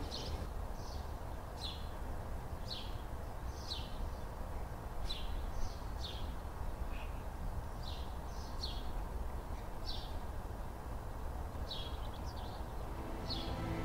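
Small birds chirping: short, high, falling chirps about once a second, some in quick pairs, over a steady low outdoor rumble.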